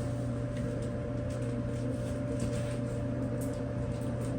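Frigidaire-built Brada clothes dryer running on a new drive belt, with a steady hum and a faint steady whine. It is quiet, the sign that the repair has cured its noise.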